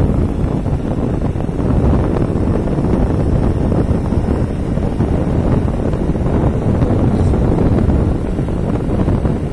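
Steady, loud wind buffeting the microphone of a moving vehicle, a low rumble of wind and road noise with no distinct events.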